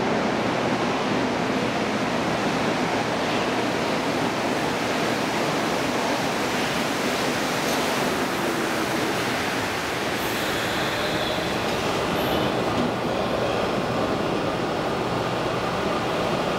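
Canadian Vickers MR-63 rubber-tyred metro train pulling into the station along the platform: a steady rush of tyre and running noise. A faint whine comes in about ten seconds in.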